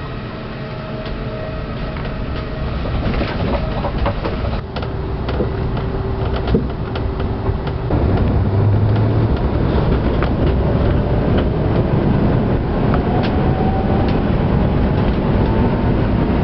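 Heathrow Pod driverless battery-electric podcar running along its guideway, heard from inside the cabin: a steady rumble of rubber tyres with scattered clicks and rattles. It grows louder over the first eight seconds or so as the pod picks up speed at the start of the trip, and a faint whine rises in pitch in the second half.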